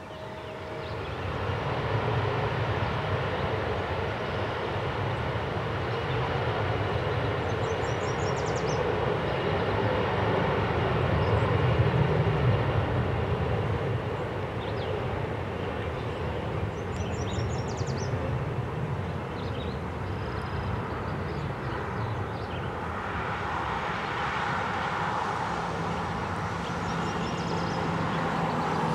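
Jet airliner engines running loud, swelling over the first couple of seconds and peaking about twelve seconds in, then holding strong.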